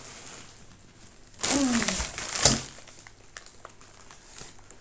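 Plastic shopping bag crinkling as it is handled. The crinkling is loudest for about a second, starting a second and a half in, and lighter rustles and small knocks follow.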